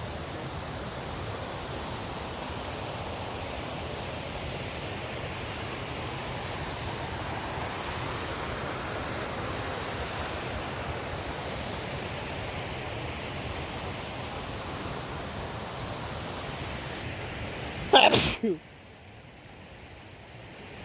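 Steady rush of falling water from a waterfall, then a single loud human sneeze about 18 seconds in, after which the rushing drops away abruptly.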